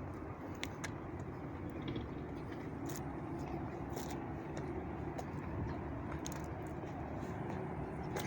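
Steady rumble of road traffic, with scattered faint clicks.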